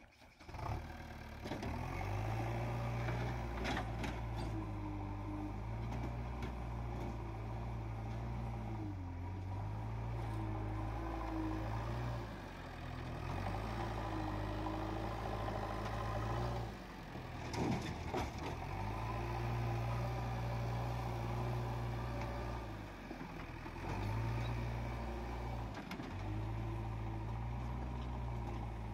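JCB 3DX Eco backhoe loader's diesel engine starting up and then running steadily, its note dipping and rising now and then as the loader works. A few short metallic knocks, the loudest about 17 seconds in.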